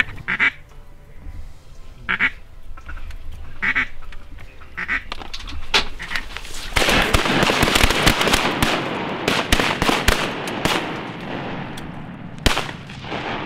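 Ducks quacking: single quacks every second or so, then a louder stretch of about four seconds of dense, rapid noise full of quick clicks. A single sharp knock comes near the end.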